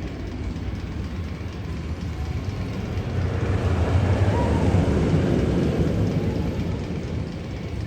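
A low rumble, like a vehicle passing, that swells to its loudest about four to five seconds in and then fades.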